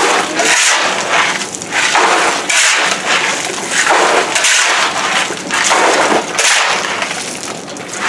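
A shovel scraping and dumping gravel around a sump-pump basin, crunching in rough strokes about once a second.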